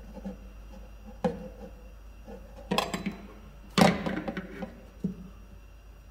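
Plastic embroidery hoop and its steel hoop bracket being handled and set down on a table: a few sharp clacks and knocks with brief rattles, the loudest about four seconds in.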